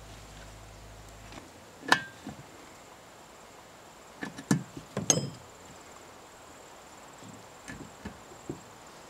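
Hand tools and metal and plastic chainsaw parts knocking and clicking as the saw is put back together: a sharp clack about two seconds in, a cluster of knocks around four and five seconds, and lighter taps near the end. A faint, steady high tone runs underneath.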